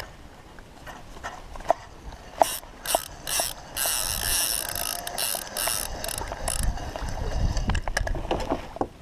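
Spinning reel being cranked, its gears whirring and clicking in a rapid run as line is retrieved. A low wind rumble on the microphone comes near the end.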